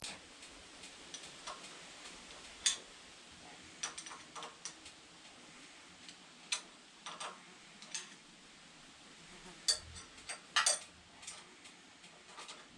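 Irregular light clicks and taps of hand tools and small metal engine parts being handled, a few sharper ones close together about ten seconds in, over a faint steady hiss.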